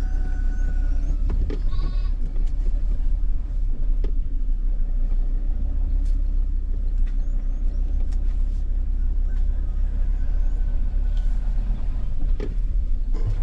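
A steady low rumble with a short sheep bleat about two seconds in, and a few faint chirps and clicks.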